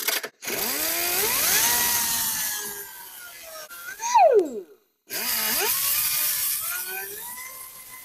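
Air die grinder with a cutoff wheel spinning up with a rising whine over a hiss and running at speed, then cutting into a steel stud. About four seconds in the whine falls sharply and loudly and stops. About a second later it spins up again and runs on.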